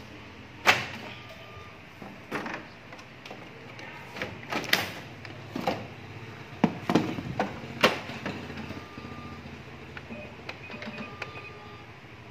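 Clacks and knocks of a Sharp AR-6020D copier's plastic covers and parts being handled, opened and shut, one sharp knock about a second in and a quick run of them in the middle, over a steady low machine hum. A few short faint beeps sound in the second half.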